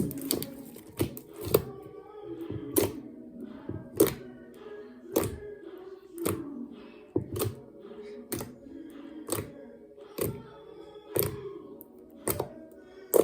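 Slime being pressed and squeezed, giving sharp pops and clicks about once a second, with faint music underneath.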